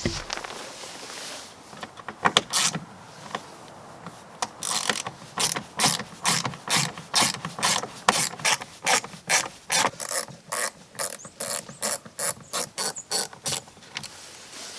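A hand ratchet fitted with a T20 Torx bit clicking steadily, about three clicks a second, as the screws holding the factory door speaker are backed out.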